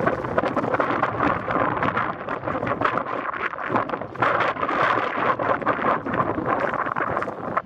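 Footsteps crunching on a stony trail, irregular and close, with wind buffeting the microphone.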